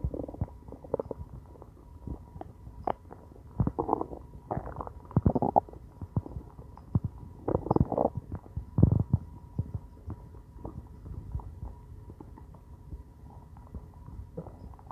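Hungry, empty stomach growling and gurgling in irregular bursts of rumbles. It is busiest and loudest in the middle stretch and settles to faint rumbles in the last few seconds.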